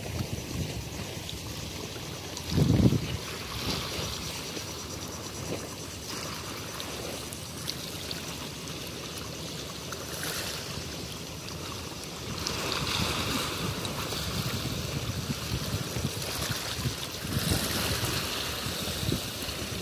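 Small sea waves washing and splashing against a low concrete wall at the shoreline, with wind on the microphone. A short low gust buffets the microphone about three seconds in, and the wash grows louder about two-thirds through and again near the end as waves break over the wall.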